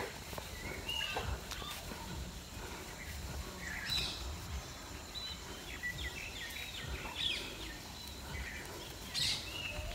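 Small birds chirping in short, scattered calls, with a run of quick notes in the middle, over a low outdoor background rumble.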